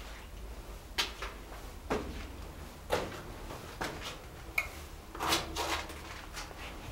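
Footsteps on the rock floor of a blasted tunnel, about one step a second, each a short sharp knock, with a longer scuff about five seconds in.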